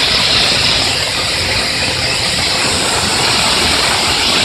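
Wormald LOP AFFF foam-water fire suppression system discharging under test: its nozzles spraying with a steady hiss, with a low rumble underneath.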